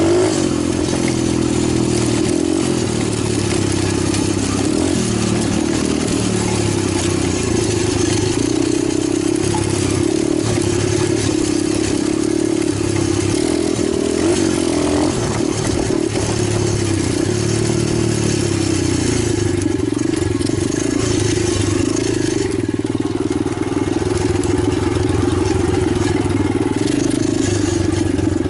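Italjet 125cc pit bike engine running continuously, its pitch rising and falling again and again as the throttle is opened and closed.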